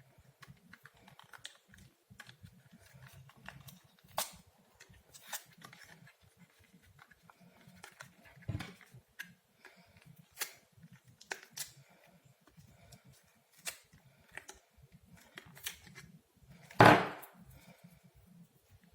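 Scattered small clicks and taps of hands and tools working on a Dell laptop's plastic casing and internal parts, with one louder snap or knock about 17 seconds in.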